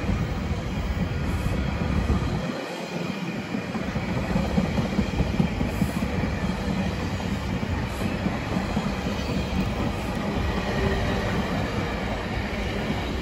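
GO Transit bilevel passenger coaches rolling past close by, a steady rumble of steel wheels on the rails.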